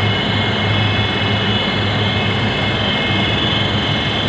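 Air handling unit fans running: a steady drone with a constant low hum and a few thin, steady high whining tones.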